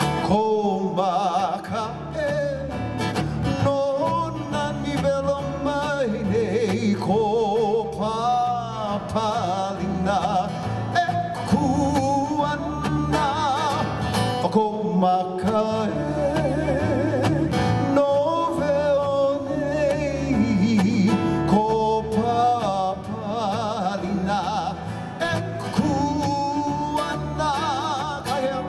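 Live Hawaiian music accompanying hula: a voice singing with a wavering vibrato over strummed acoustic guitar.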